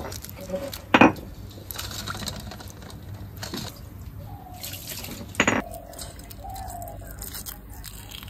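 Hard-boiled eggs being peeled by hand over a stainless-steel bowl of water: small crackles of shell coming away and water dripping and splashing as an egg is rinsed. Two sharp clicks stand out, about a second in and again just past halfway.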